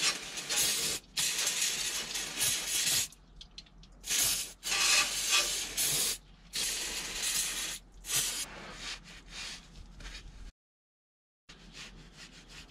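Aerosol can of brake cleaner spraying in several hissing bursts of one to three seconds each, washing spilled gear oil off the underside of the car.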